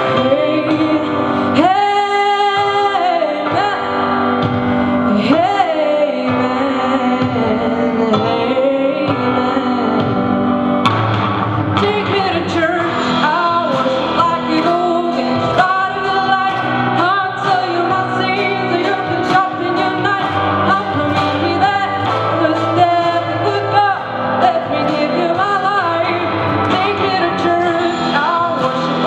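A song with a singing voice over guitar and drums, playing steadily.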